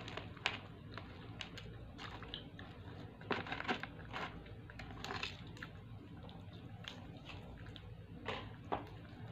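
Close-up eating of fried chicken by hand: chewing and pulling the meat apart, heard as irregular crunches and clicks, busiest about three to four seconds in and again near the end.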